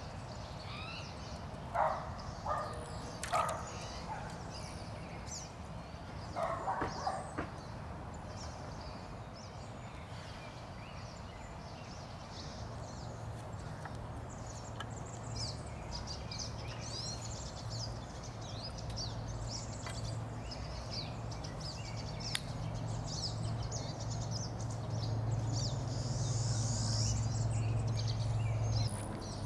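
Outdoor background sound. Short high chirps run throughout, with a few brief animal calls about two seconds in and again about seven seconds in. A low steady hum sets in about halfway through and slowly grows louder.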